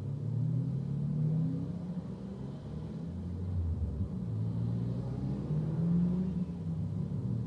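Car engine accelerating on a race circuit, its pitch climbing and then dropping back several times as it works through the gears.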